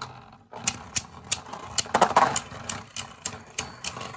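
Spinning Beyblade Burst tops clashing in a plastic stadium: a run of sharp plastic clicks and knocks, a few each second, with a louder scraping clash about two seconds in.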